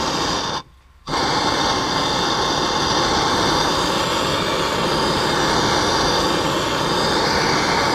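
Handheld gas torch burning with a steady hiss as its blue flame heats the metal sleeve of a car's cradle bushing. The sound breaks off for about half a second about a second in.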